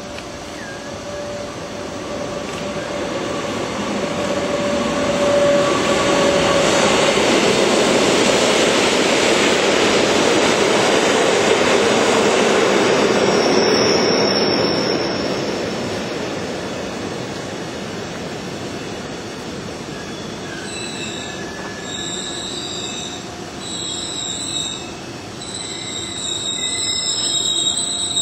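Metre-gauge passenger train of Glacier Express panorama coaches rolling past on the rails. Its wheel-and-rail rumble builds to its loudest over the first half, then eases. From about two-thirds of the way in, the wheels squeal high-pitched in overlapping tones, loudest near the end.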